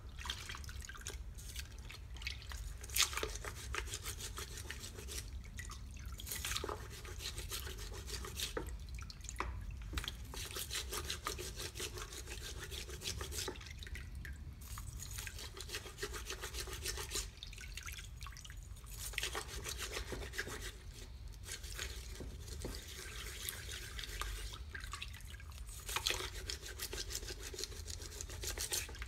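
Rubber-gloved hands washing greasy metal drill press parts in a bucket of warm water and degreaser: sloshing and dripping water, with an occasional knock of metal, the loudest about three seconds in.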